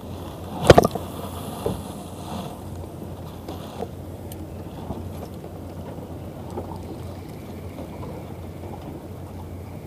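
Boat motor running steadily while trolling. A sharp loud knock comes close to the camera just under a second in, with a lighter knock a second later, as the rod and reel are handled.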